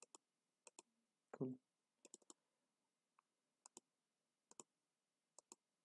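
Faint, irregular computer mouse clicks, some in quick pairs, with one short low sound about a second and a half in.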